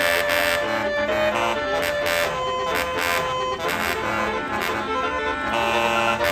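Indonesian tour bus's telolet horn playing a tune: several sustained horn tones stepping up and down in pitch.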